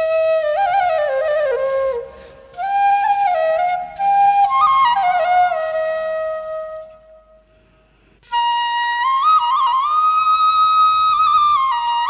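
Background flute music: a melody played in short flowing phrases, with a brief pause about two seconds in and a longer pause around seven seconds before a higher, sustained phrase.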